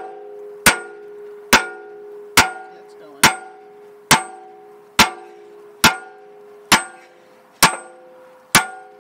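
Sledgehammer blows on a steel wrench, ten in a row at just under one a second, each a sharp metal clang with a ringing tone that carries on between blows. The hammering is to break loose the gland nut of a backhoe's hydraulic cylinder.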